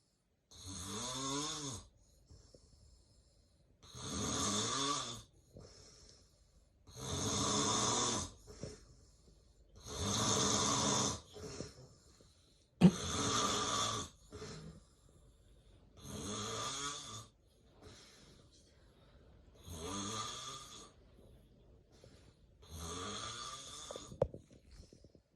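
A man with severe sleep apnea snoring in his sleep: eight rasping snores, about one every three seconds, with short quiet gaps between them. A single sharp click comes at the start of one snore about halfway through.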